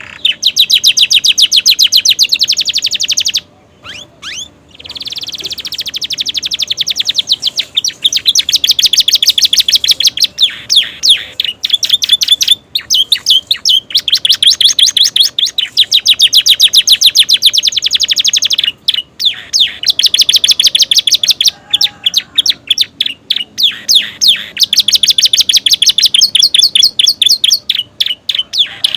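Domestic canary singing loudly and almost without stopping: long phrases of very fast repeated notes, high-pitched trills broken by a few short pauses. The song is filled with learned phrases copied from prinias (prenjak and ciblek).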